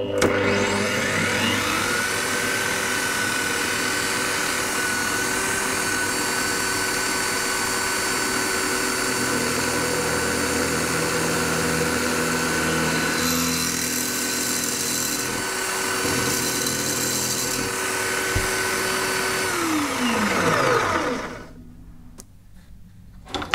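Benchtop drill press starting up, running steadily with a whine while a 6 mm bit drills through an airsoft rifle's metal outer barrel, then switched off and spinning down near the end.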